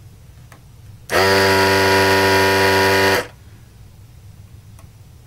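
Desoldering gun's built-in vacuum pump buzzing steadily for about two seconds, switching on abruptly about a second in and cutting off just as suddenly. It is sucking molten solder off a key switch's contacts through the heated nozzle.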